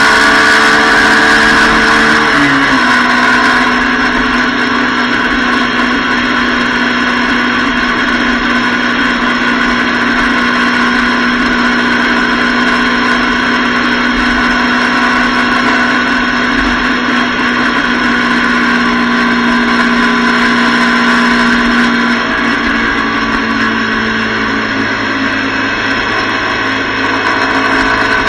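Motorcycle engine running at steady highway cruising speed, heard from a camera mounted on the bike, with constant wind and road rush. The engine note drops a little about two seconds in and shifts lower again about three quarters of the way through.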